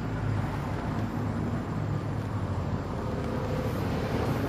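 Steady low rumble of a road vehicle running, with engine and road noise and no distinct events.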